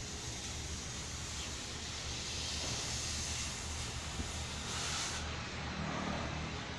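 Steady rushing background noise over a low hum, with a brief louder hiss about five seconds in.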